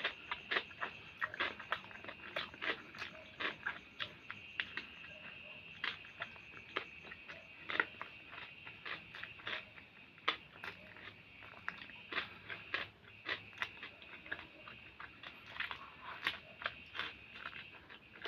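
Close-up chewing and biting of a hamburger: irregular wet mouth clicks and smacks, over a steady high-pitched drone.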